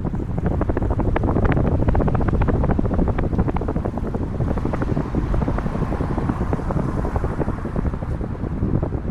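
Wind buffeting the microphone of a camera on a moving bicycle: a steady low rumble with many short ticks and rattles scattered through it.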